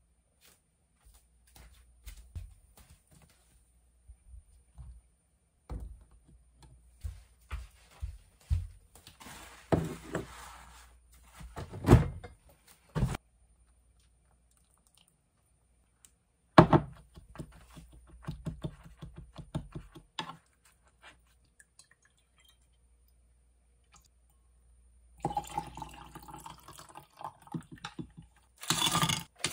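Kitchen counter handling sounds: a glass, a kettle and a wooden bowl knocked and set down several times, with hot water poured from a kettle into a wooden bowl.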